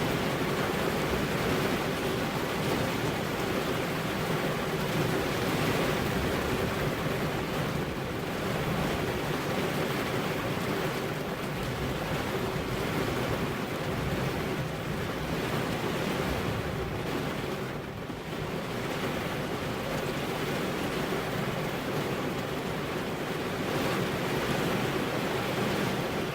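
Steady heavy rain falling on car windows, a dense, even rush of drops on glass, easing very slightly for a moment about two-thirds of the way through.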